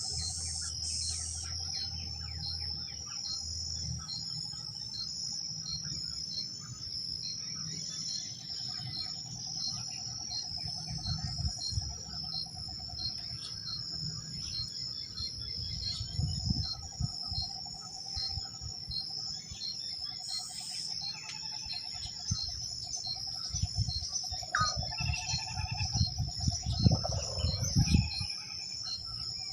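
Riverside dawn chorus: a steady, high-pitched insect trill, with a regular pulse about twice a second, underneath birds calling, the bird calls busiest near the end. Some low rumbling thumps come in the last few seconds.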